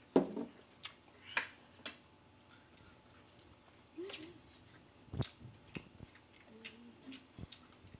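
Close-miked eating sounds: chewing and lip smacks with sharp clicks, likely forks on dishes, and a few short hummed "mm"s of enjoyment.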